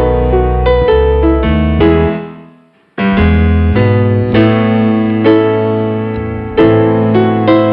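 Background piano music with sustained chords over low bass notes. About two seconds in, the music fades away and then starts again abruptly about a second later.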